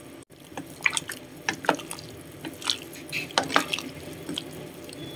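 Chicken broth boiling in a stainless steel pot with sliced sponge gourd: irregular bubbling and plopping.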